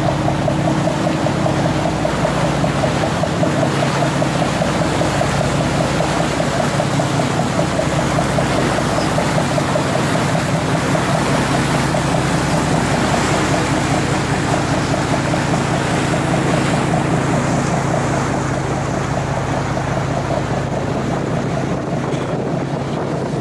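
A boat's engine running steadily: a low, even drone with a fast throb, heard from on board, with rushing wind and water noise over it.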